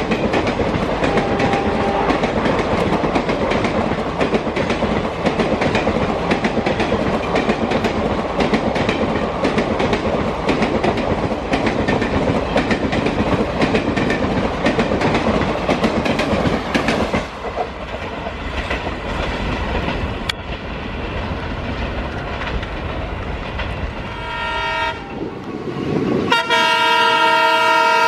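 Passenger coaches of an express train passing close at speed, wheels clattering rapidly over the rail joints, the clatter easing off about two-thirds of the way through. Near the end an Indian Railways diesel locomotive's multi-tone horn sounds briefly, then again in a long steady blast.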